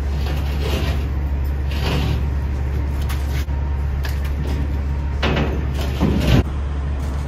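A large metal plate scraping and sliding against the truck's metal body as it is worked into place, in several short scrapes. The loudest comes about six seconds in, with a ringing metallic squeal. A steady low hum runs underneath.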